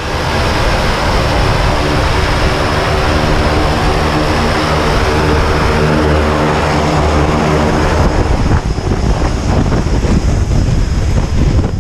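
Single-engine high-wing jump plane's propeller engine running steadily close by. About eight seconds in the sound turns rougher and more uneven.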